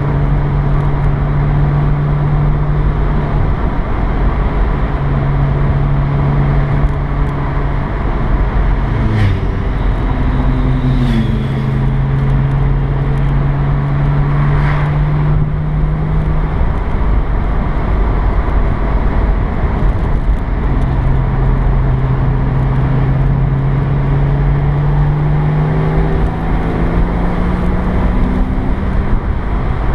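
Porsche 987 Boxster S flat-six engine droning steadily in the cabin while driving, over road and tyre noise. The engine note fades out a couple of times, then rises slowly in pitch near the end as the car accelerates.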